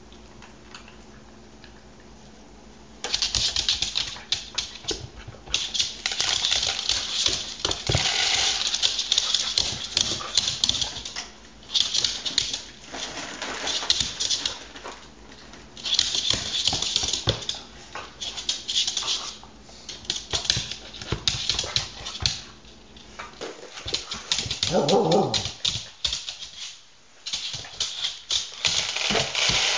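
A corgi moving about a hardwood floor strewn with dry kibble, making dense runs of rapid clicking and tapping that start about three seconds in. A short dog whine comes a few seconds before the end.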